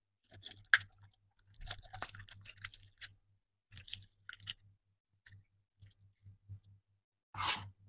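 Clear yellow slime with small fruit-slice pieces being squeezed and kneaded by hand, squishing and crackling in irregular bursts, with a louder squeeze near the end.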